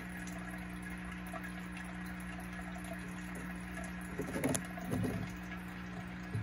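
Aquarium water trickling steadily over a constant low pump hum, with a few short gurgles about four and five seconds in.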